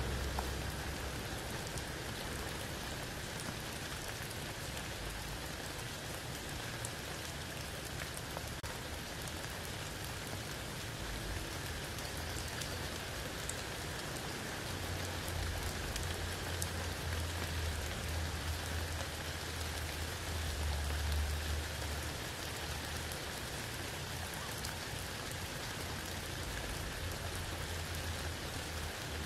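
Steady rain falling through tree leaves onto wet ground and a puddle, with scattered individual drops ticking. A low rumble swells in the middle and then fades.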